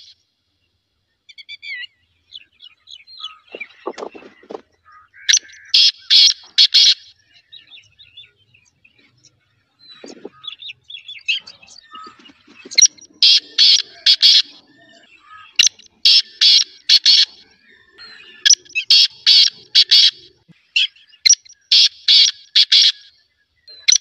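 Black francolin (black partridge) calling: loud phrases of four or five quick, high-pitched notes, repeated several times and coming about every three seconds in the second half. Fainter chirps of other birds fill the gaps.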